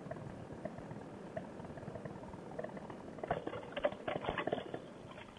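Paramotor trike's wheels touching down and rolling over a bumpy grass field: a run of rattling knocks from about three seconds in over a steady crackling rush of wind.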